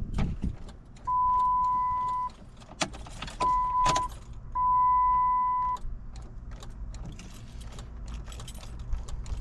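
Three steady electronic beeps at one pitch, each about a second long with the middle one shorter, amid light clicking and jingling of keys. A truck's ignition is being tried, and the starter does not engage.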